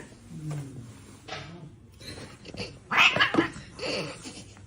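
A domestic cat meowing, with the loudest call about three seconds in.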